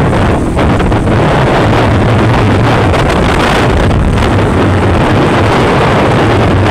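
Heavy wind buffeting on the microphone of a moving motorcycle, with the motorcycle's engine running steadily underneath as a low hum.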